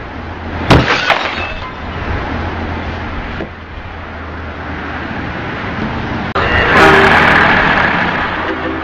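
Car crash sounds over steady traffic noise: a sharp crack of impact with a short ring about a second in, followed by a smaller knock, then a longer, louder burst of noise around seven seconds in.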